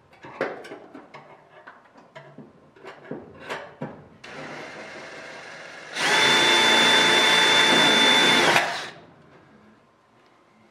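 Drill with a 12-inch bit back-drilling a hole through the aluminium wing-skin overlap into the rib. After a few light knocks and clicks it starts softly about four seconds in. It runs loud and steady with a high whine for about three seconds, then winds down.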